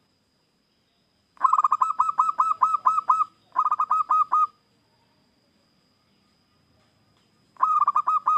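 Zebra dove (perkutut) cooing: a long run of quick repeated notes starting about a second and a half in, a shorter run right after it, and a third run beginning near the end.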